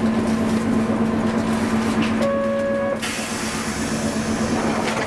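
Hankai tram running, with a steady hum and rolling noise. A short, steady beep sounds about two seconds in and stops within a second.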